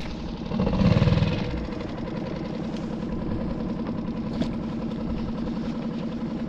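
Small skiff's outboard motor idling with a steady, evenly pulsing rumble, swelling louder briefly about a second in.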